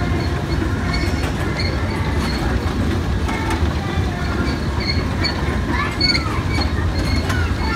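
Kiddie tractor carnival ride turning on its metal platform: a steady low rumble with a short high squeak repeating a little under twice a second, like wheels running round a track.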